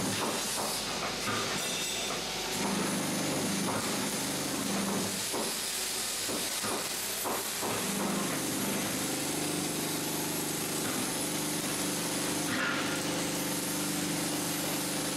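MIG (wire-feed) welding arc crackling and hissing steadily as a bead is laid on steel plate, with a faint low hum underneath.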